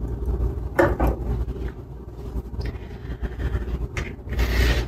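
Steady low rumble, with a brief knock about a second in and a soft rustling noise near the end.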